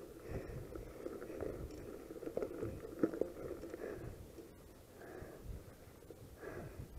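Mountain bike ridden over a gravel and grass trail: an uneven rumble of tyres on the ground with irregular knocks and rattles from the bike.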